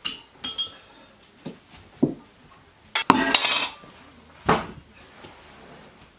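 Steel cups, pot and cutlery clinking and knocking on a table. There are a few ringing clinks at the start, a louder clatter about three seconds in, and one more knock after it.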